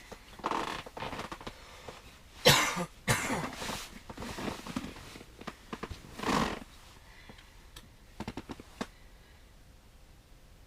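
Irregular rustling and handling noises, with a sharp knock about two and a half seconds in as the loudest sound, a short breathy swell around six seconds, and a few small clicks near the end.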